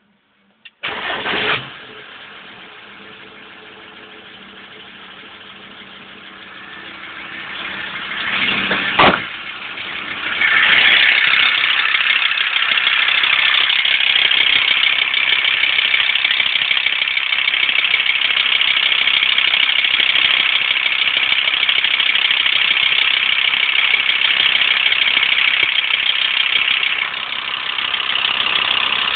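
Volkswagen LT35 van engine cold-started: it turns over and catches about ten seconds in, then runs with a loud, steady rattle, like a bag of spanners.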